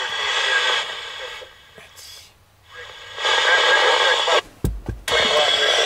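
Railroad radio scanner receiving static-laden, garbled voice transmissions, with tinny sound in two stretches and a break between them. A short low thump comes about four and a half seconds in, and radio audio starts again near the end.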